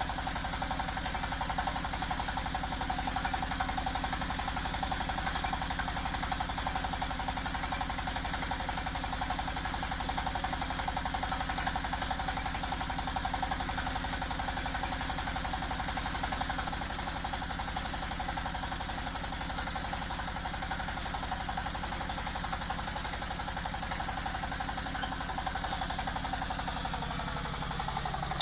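Single-cylinder diesel engine of a small hydraulic water-well drilling rig running steadily with a fast, even firing beat. It gets slightly quieter a little past the middle, and its note sags lower near the end.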